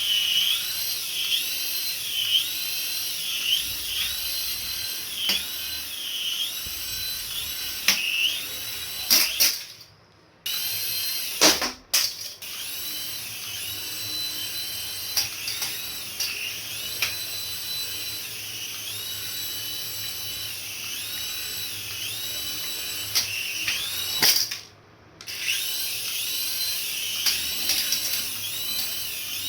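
Small electric motor of a remote-control toy whining at high pitch, speeding up and slowing down again and again as the throttle is worked. There are a few sharp clicks, and the sound cuts out briefly twice.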